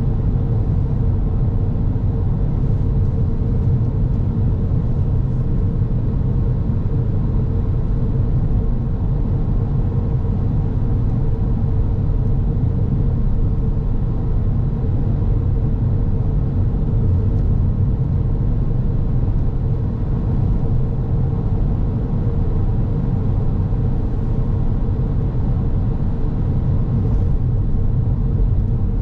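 Car driving at a steady pace: continuous low tyre and engine rumble, with a faint steady hum above it.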